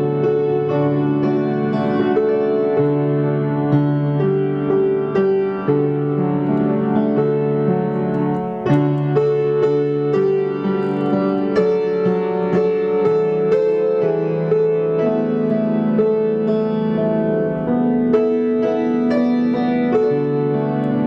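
Keyboard playing a slow instrumental piece of held chords, which change every second or two under fresh note attacks.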